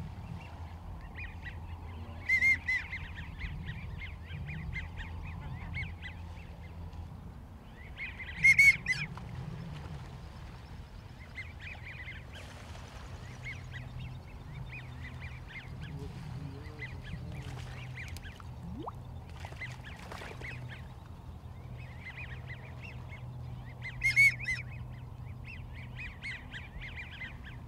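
A flock of American wigeon whistling and chattering in many short, overlapping calls, with three much louder close whistles about two seconds in, about eight seconds in and near the end.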